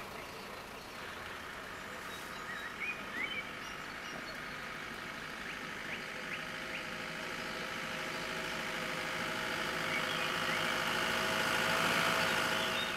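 A jeep's engine running as it drives along a dirt track, growing gradually louder before falling away sharply at the end.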